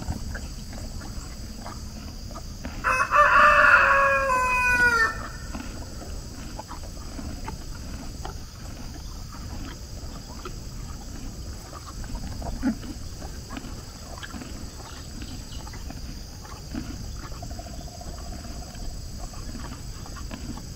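A rooster crows once, about three seconds in: a loud call of a little over two seconds whose last note falls in pitch. Otherwise a steady low background with faint scattered ticks.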